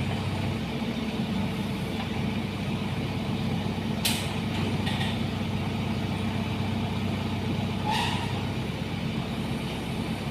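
Diesel engine idling steadily, with two brief sharp noises about four seconds in and again near eight seconds.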